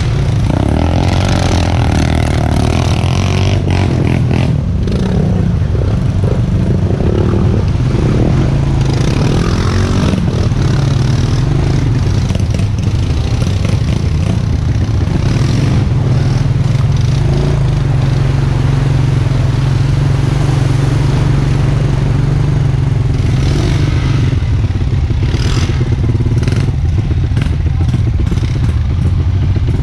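ATV engine running steadily at riding speed as the quad moves along a trail, with occasional rattles of the machine over bumps.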